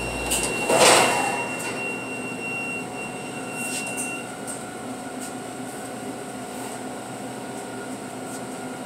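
Roll-in rack oven's stainless-steel door unlatched and swung open with a loud clunk about a second in, followed by the steady hum of the oven and exhaust hood fans.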